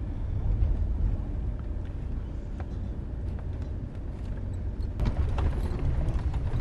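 Car cabin noise on the move: a steady low rumble of engine and tyres, with small rattles and knocks from the interior. About five seconds in, a knock is heard and the noise turns louder and rougher.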